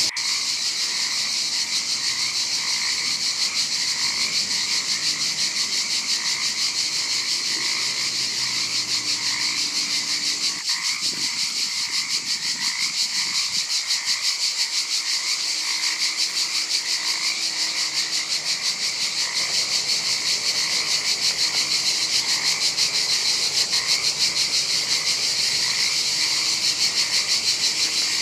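Chorus of frogs and insects: a dense, fast-pulsing high trill runs steadily, with short croaking calls repeating about every half second beneath it.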